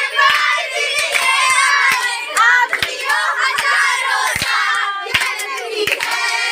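A group of girls clapping their hands at an uneven pace while many young voices sing and call out together.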